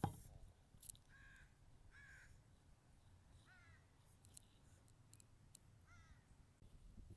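Crows cawing faintly, about four separate caws spread over several seconds.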